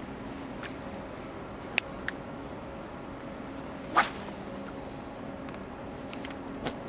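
A few sharp clicks and taps from handling a small fish and unhooking a lure from its mouth, with one louder, brief scrape about four seconds in, over a steady faint hum and hiss.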